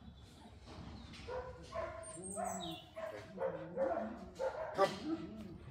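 A dog whining and yelping in a string of short calls whose pitch bends up and down, starting about a second in.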